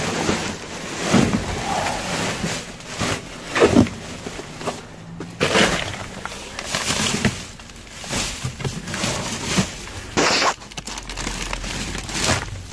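Rummaging through discarded groceries in a dumpster: irregular rustling, crinkling and knocks as items are pulled about and moved.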